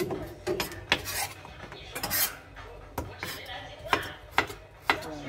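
Kitchen knife cutting a cucumber on a cutting board: sharp knocks of the blade against the board about once a second, with two longer scraping strokes in the first half.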